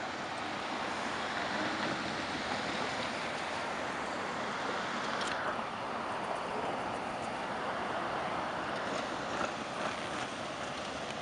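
Street traffic, cars and a semi-truck tractor, driving over a bumpy railway level crossing: steady tyre and road noise. There is one sharp knock about five seconds in and a few lighter knocks near the end.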